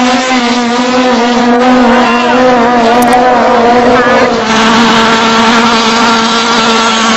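Racing longtail boat engine running flat out at speed, one steady high drone whose pitch sags slightly. About four seconds in it gives way abruptly to another boat's engine drone.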